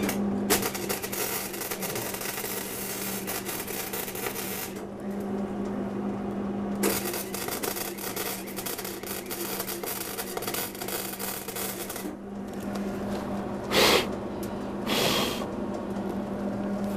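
Wire-feed welder arc crackling and sputtering in two runs of about four and five seconds, welding the head onto a steel scrap sculpture, over a steady low hum. Two short bursts of noise near the end.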